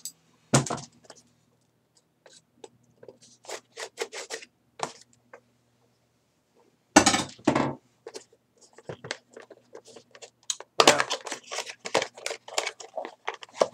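Flashlight retail packaging being handled and opened by hand: irregular scrapes, rustles and small clicks of cardboard and plastic, with louder bursts about half a second in, around seven seconds and from about eleven seconds.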